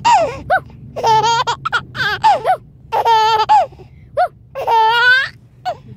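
A five-month-old baby laughing hysterically in a series of high-pitched bouts, each under a second, with short breaths between them.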